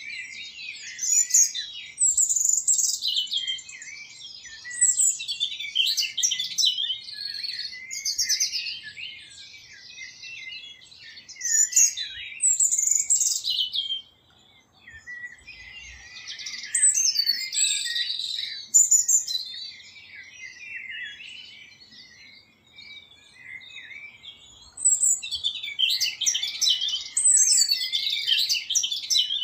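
Common nightingale singing: phrases of rapid, varied notes following one another with short pauses between them, and two longer breaks around the middle.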